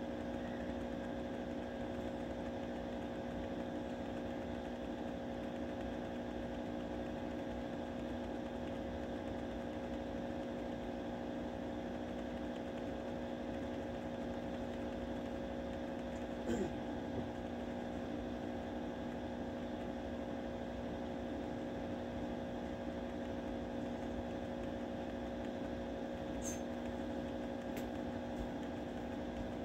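A steady hum holding several constant tones, like electrical equipment or a fan running. A brief louder sound about halfway through and a couple of faint clicks near the end.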